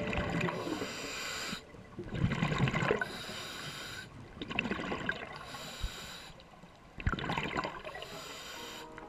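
Scuba diver breathing through a regulator underwater: a hiss on each inhale alternating with a bubbly gurgle on each exhale, about four breaths at an even pace.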